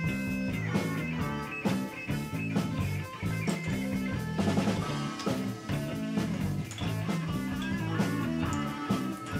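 Background rock music with guitar, a moving bass line and a steady drum beat.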